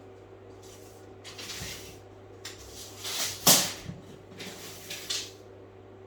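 A series of short scraping and knocking handling noises, the loudest about three and a half seconds in, over a faint steady hum.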